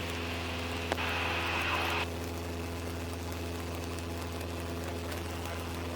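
Single-engine Cessna's piston engine and propeller droning steadily, heard inside the cockpit during cruise on the downwind leg. About a second in there is a sharp click followed by about a second of hiss.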